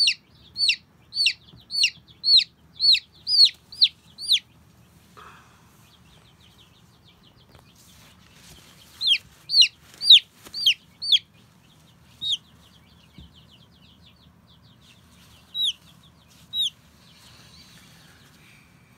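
Baby chick peeping loudly in rapid runs of high, downward-sliding peeps, about three a second, going quiet for a few seconds midway and then giving a few single peeps near the end. Loud, insistent peeping like this is a chick's distress call.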